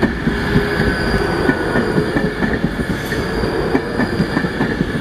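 Class 390 Pendolino electric train passing close by at speed: a continuous rumble of steel wheels on rail with many rapid clicks as the wheels run over the rail joints.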